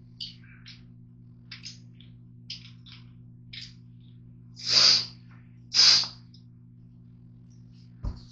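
A person breathes out sharply through the nose twice, about a second apart, each breath short and loud. Soft scattered clicks come before them, and a steady low hum runs underneath.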